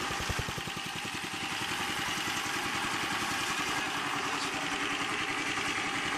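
An 8 hp Honda single-cylinder gasoline engine running steadily under load from belt-driven alternators, with an even, rapid firing beat.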